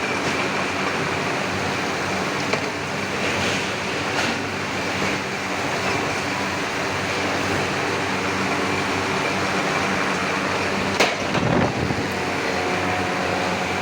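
Steady machinery noise with a faint hum, broken by one sharp knock about eleven seconds in.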